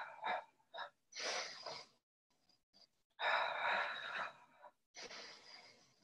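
A woman breathing hard and audibly, three long breaths each lasting one to one and a half seconds, during the Pilates Hundred's paced breathing.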